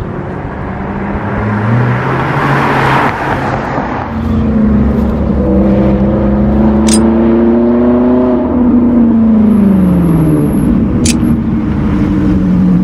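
A car passes about two to three seconds in. Then a sports car engine, the red Ferrari's, rises steadily in pitch as it accelerates, falls away as it lifts off, and holds a steady note near the end as it rounds the bend.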